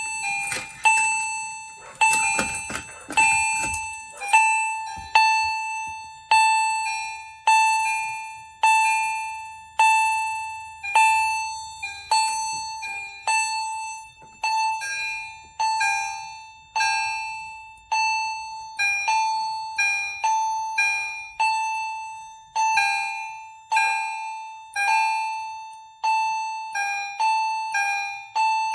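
Two fire alarm chime strobes, an EST Genesis and an EST Integrity, sounding an alarm: repeated bell-like strikes, about one a second, each ringing and fading away. The two chimes are at slightly different pitches and strike out of sync with each other.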